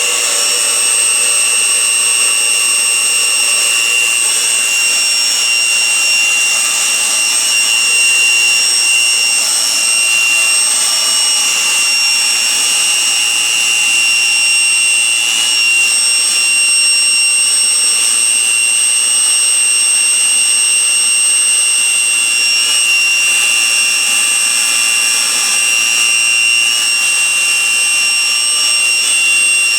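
A pump running with a strange, steady high-pitched whine over a mechanical hiss.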